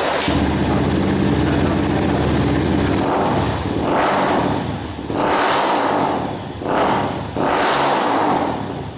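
2012 Yamaha Fazer motorcycle with a Roncar Coyote RS5 aftermarket exhaust, running at a steady note, then revving up and dropping back four times from about three seconds in.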